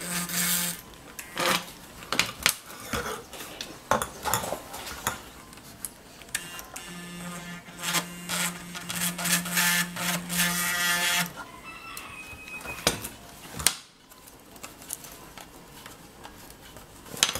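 Instant-heat soldering gun buzzing while its trigger is held: briefly at the start, then for about four seconds midway. In between come sharp clicks and knocks of the gun and parts being handled against a stainless steel tray.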